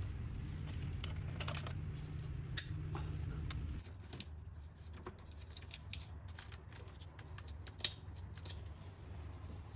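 Scattered light clicks and taps from hand tools and parts being worked in a truck's engine bay during intake manifold removal. A low hum runs underneath and stops about four seconds in.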